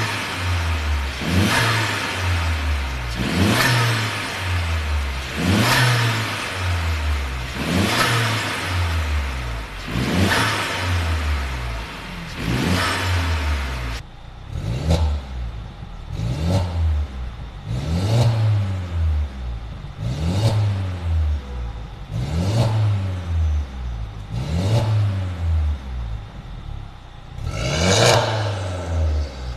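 Mercedes-Benz W213 E300's turbocharged four-cylinder engine revved in short blips through an Armytrix turbo-back valved exhaust, a rise and fall in pitch about every two seconds. About halfway through the exhaust note turns duller and quieter, then brightens again near the end.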